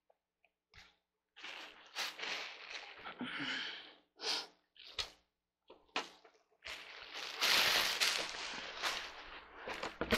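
Handling noises from a cardboard box and chair parts: scattered rustling and scraping with a few sharp knocks, and the longest, loudest rustle over the last few seconds as the box flaps are worked by hand.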